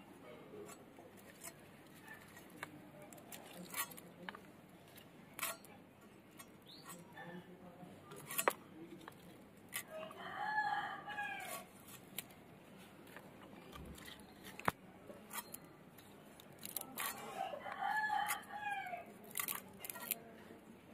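A rooster crows twice, once about halfway through and again near the end, each crow a rising-then-falling call of a second or two. Between them come short scattered clicks and scrapes of fish being cut on a boti blade.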